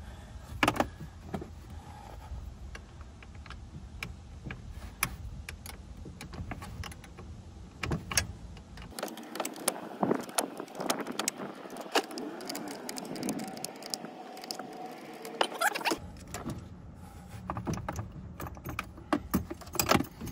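Irregular metallic clinks and clicks of a socket wrench with an extension working the 10 mm terminal bolts on a car battery.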